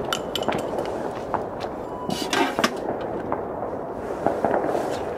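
Fireworks and firecrackers going off all around: a steady din of many scattered bangs and crackles, with one louder hissing burst a little over two seconds in.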